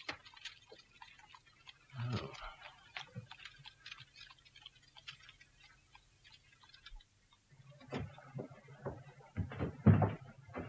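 Light ticking and clicking, with soft knocks about two seconds in and louder knocks near the end.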